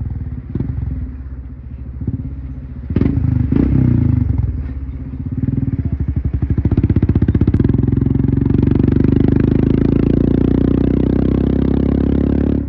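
Royal Enfield Himalayan's single-cylinder engine running through an aftermarket Devil Pro Evolution exhaust on the move. There are a couple of sharp throttle blips about three seconds in, then a brief easing off, then it pulls hard under acceleration from about six seconds and holds a loud, steady run.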